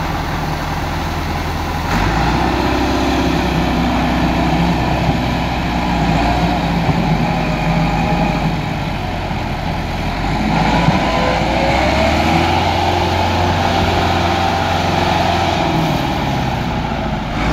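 Farm tractor's diesel engine working hard under load as it pulls a loaded trolley through soft ground, its rear wheels slipping. The engine gets louder about two seconds in and its note shifts again about twelve seconds in.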